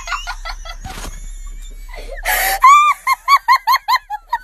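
A sharp breathy burst, then a quick run of high-pitched shrieking laughter, about five cries a second.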